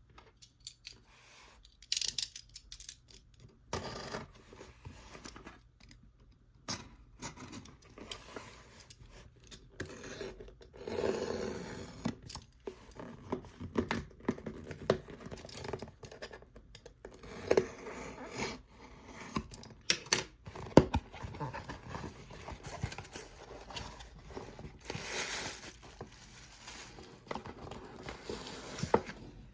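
Hands unboxing a ball-jointed doll head: packaging tearing, crinkling and scraping in irregular bursts, with scattered sharp clicks and taps.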